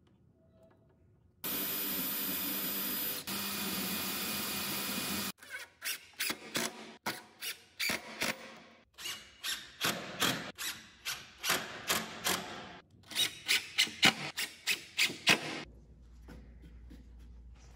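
Cordless drill working into a wooden frame: one steady run of about four seconds, then a rapid series of short bursts, about two a second, for some ten seconds.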